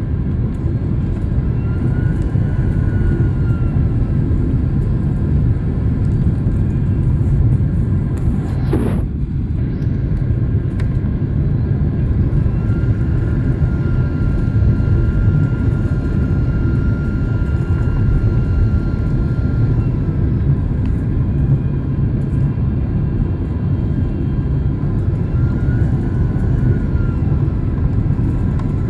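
Steady low rumble of a jet airliner's cabin in flight, from engine and airflow noise during the descent. A faint engine whine rises and falls slightly, and a brief falling whistle is heard about nine seconds in.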